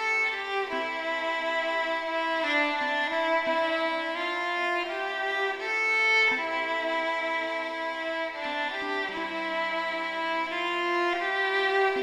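Solo violin playing a slow melody of long held notes, with a lower note sounding alongside for a while about nine seconds in.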